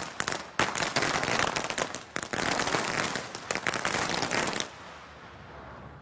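Feu de joie: a guard of honour's rifles fired one after another down the ranks in quick succession, a dense rippling crackle of shots that runs for over four seconds and then stops. This is the third and last ripple of the salute.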